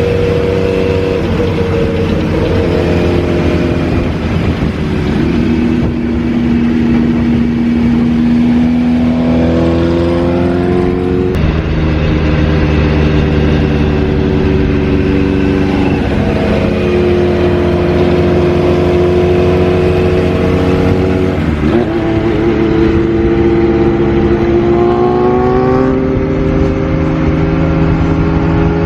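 Kawasaki Z2's 750 cc air-cooled inline-four running through a Moriwaki Monster racing exhaust under way, the engine note climbing as it pulls and dropping sharply three times, like gear changes.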